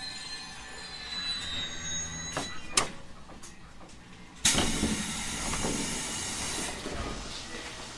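Inside a JR Kyushu 811 series train standing still: a couple of sharp knocks, then about four and a half seconds in a sudden loud hiss of released compressed air that fades over about two seconds.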